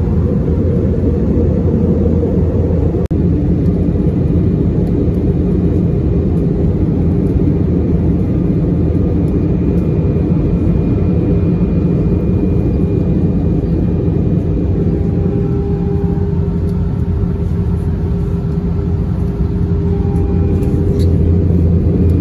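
Airbus A321 cabin noise in flight, heard at a window seat during the descent with flaps extended: a steady, deep rumble of engines and airflow. Faint high whines come and go above it.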